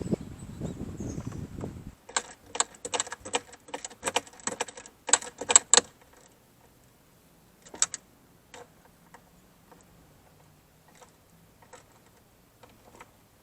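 Metal tools and parts being handled: a dull rustle for about two seconds, then a quick run of sharp metallic clinks and rattles for about four seconds, then a few scattered clicks.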